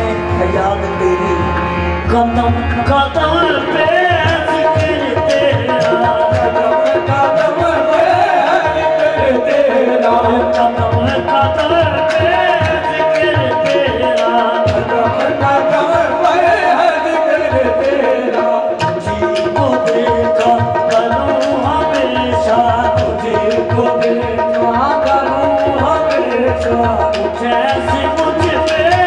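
Live qawwali: male voices singing a ghazal in gliding, ornamented melodic lines over a steady held note and a dense hand-drum rhythm.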